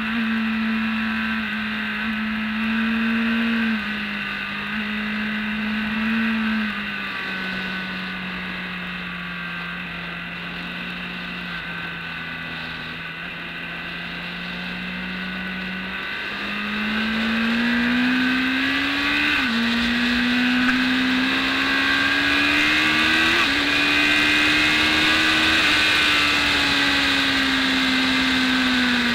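BMW K1200S inline-four engine heard from the bike itself at track speed. It holds a steady, lower drone for several seconds through a long lean, then the revs climb, dropping abruptly twice at upshifts, before easing off near the end as the throttle is rolled off.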